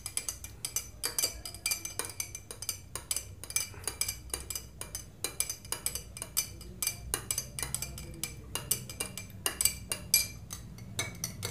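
Flat stirring sticks knocking and scraping against the inside of two glass tumblers of soapy water as they are stirred. The result is a quick, irregular run of light clinks, several a second.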